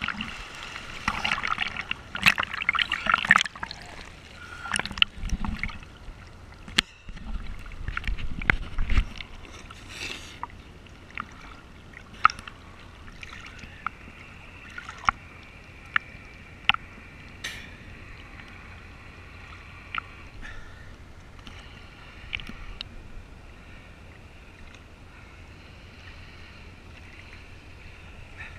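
Seawater splashing and sloshing around a camera at the sea surface, loud and choppy for the first several seconds. It then settles into faint lapping with scattered small ticks.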